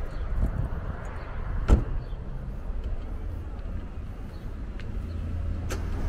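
Steady low rumble of outdoor street ambience, with one sharp click a little under two seconds in and a fainter click near the end.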